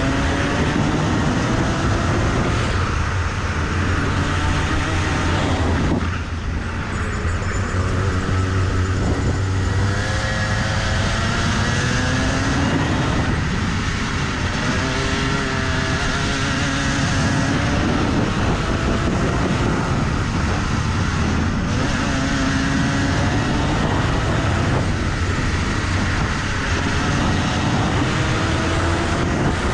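Rotax two-stroke kart engine at racing speed, its pitch climbing steadily on the straights and dropping back as the driver lifts for corners, with a clear lift about six seconds in.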